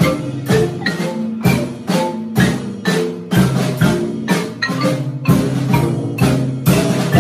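An ensemble of marimbas and a vibraphone played with mallets, struck notes in a steady rhythm forming a tune with chords.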